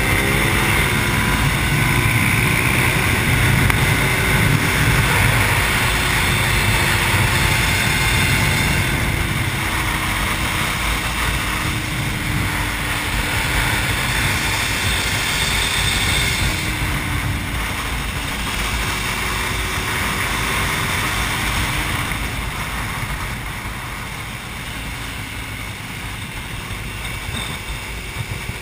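Sport motorcycle engine running at track speed from an onboard camera, its pitch rising and falling with the throttle, under heavy wind rush on the microphone. It gets somewhat quieter over the last few seconds.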